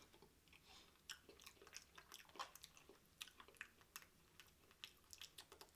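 Faint, close chewing: soft wet mouth clicks and smacks from eating a mouthful of KFC Spicy Famous Bowl, made of mashed potatoes, corn, gravy, chicken and cheese.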